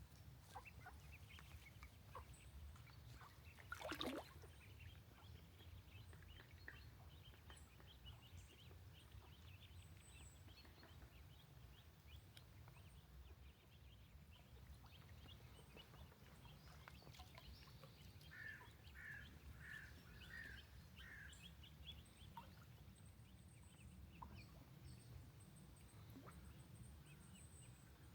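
Faint, rapid peeping of ducklings. A little past halfway there are five short lower calls in a row, and about four seconds in there is one brief louder noise, over a low steady rumble.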